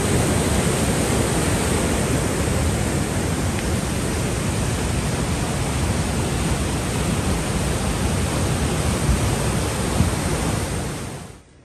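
Glacial meltwater stream rushing over boulders: a loud, steady wash of water noise that fades out near the end.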